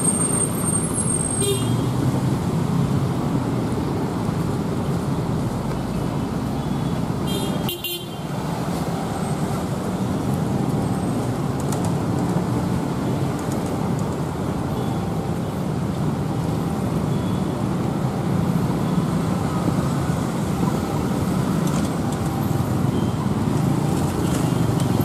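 Steady road traffic of cars and motorcycles driving past, with a short horn toot about a second and a half in and another at about seven seconds.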